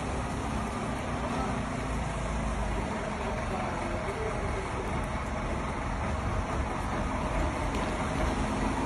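Lorry engine running at low revs as it wades slowly through deep flood water, with a steady low rumble and the wash of water.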